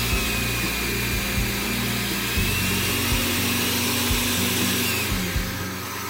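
Oster 12-speed 450-watt blender motor running with an empty jar, a steady whirr with a thin high whine. Its pitch shifts about two and a half seconds in and again around five seconds as the speed buttons are pressed.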